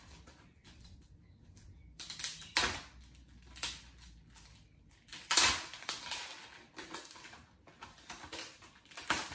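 Clear plastic wrapping being peeled and crinkled off a tray of pencils, with irregular rustles and light clatters of the tray against the pencil tin. The loudest is a sharp knock about five seconds in.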